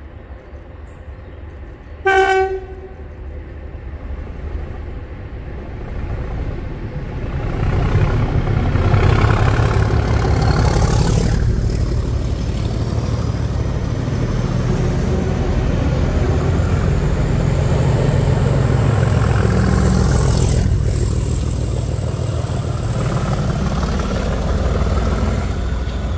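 Class 37 diesel locomotive sounding a short horn toot about two seconds in, then its English Electric V12 diesel engine and the train's wheels on the rails running loud as the locomotive and test-train coaches pass close by, easing slightly near the end.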